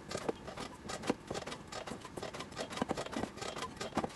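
Hands kneading pasta dough in a stainless steel bowl: a faint, irregular run of small sticky clicks and taps as the dough is pressed and folded against the bowl.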